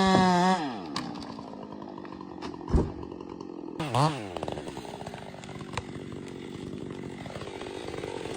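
Chainsaw held at full throttle, then winding down to idle just under a second in. A single sharp crack comes about three seconds in, a quick blip of the throttle near four seconds, then the saw idles on.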